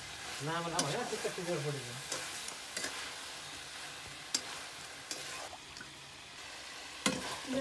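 Chicken curry sizzling in a black iron kadhai over a wood fire while a spoon stirs it, with scattered scrapes and taps of the spoon against the pan. A brief voice is heard about half a second in, the sizzle thins a little after five seconds, and a sharp clink comes near the end.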